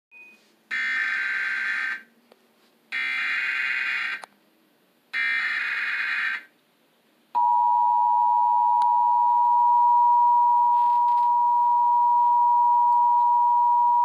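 Emergency Alert System activation played on a television: three short bursts of SAME header data, each about a second long with a gap of about a second between them, then the steady two-tone attention signal (853 and 960 Hz) starting about seven seconds in.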